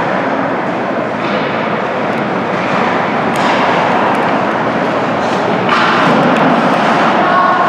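Steady reverberant ice-rink noise during a hockey game: skate blades scraping the ice over the hall's echo. About six seconds in, a louder hiss of ice spray starts as a skater stops hard.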